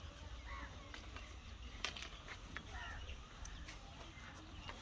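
Crows cawing faintly a few times, over a low steady rumble and a few light clicks.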